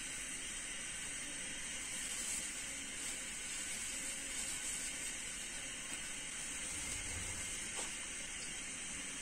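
Steady hiss of dollops of water yam akara batter frying in hot vegetable oil.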